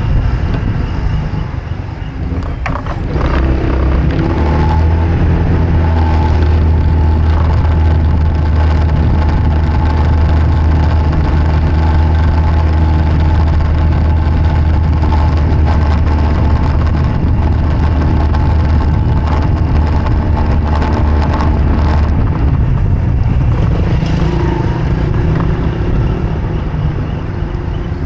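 A vehicle's engine running steadily while driving at road speed, with tyre and wind noise. The engine note dips briefly about two seconds in, then holds steady, and eases off near the end.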